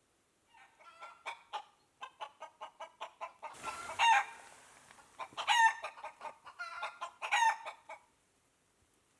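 A chicken clucking rapidly, then three loud drawn-out squawks, like a hen's cackle.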